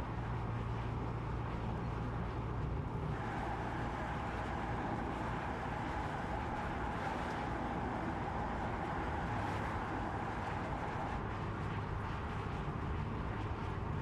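Mercedes-AMG EQE 53 electric sedan driving on the road: steady road noise with a low hum. A higher steady tone comes in about three seconds in and fades out near eleven seconds.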